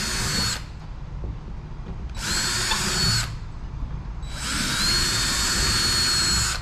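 Cordless drill boring into a sailboat's hull in three bursts. The first ends about half a second in, the second runs from about two to three seconds in, and the third starts about four and a half seconds in and is still going at the end. Each burst is a whine that rises briefly as the drill spins up, then holds steady.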